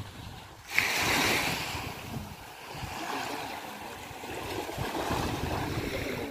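Small waves washing onto a sandy beach, with wind buffeting the microphone. The rush of surf jumps abruptly louder just under a second in, then settles to a steady wash.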